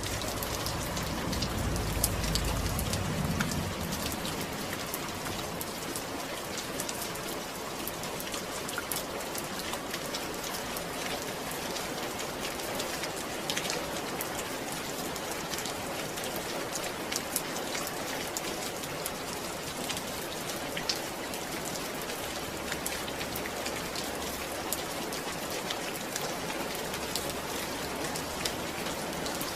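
Steady rain falling, a dense even hiss dotted with the ticks of individual drops, with a brief low rumble about two seconds in.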